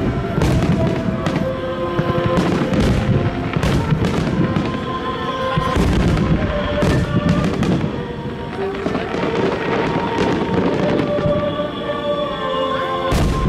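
Aerial fireworks shells bursting one after another, a dense run of loud bangs, over an original song played along with the display.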